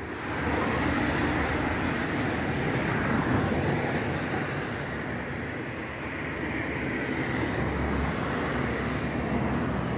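Road traffic passing on a city avenue: a steady rush of cars that swells about half a second in, eases off in the middle, then builds again.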